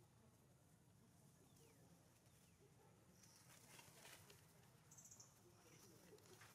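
Near silence: faint outdoor ambience with two brief, high-pitched squeaks, about three seconds in and again about five seconds in.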